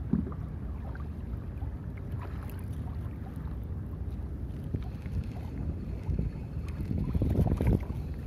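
Wind buffeting the microphone over choppy water lapping against a kayak, with a few small knocks and a louder swell about seven seconds in.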